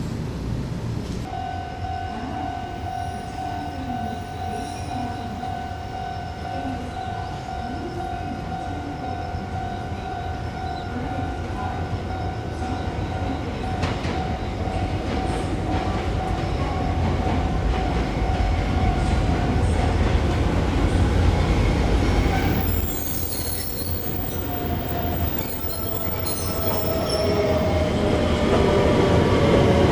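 Kobe Electric Railway electric train running, with a steady high squeal for most of the first twenty seconds, typical of wheels on a curve. Near the end a falling whine comes in as the train slows.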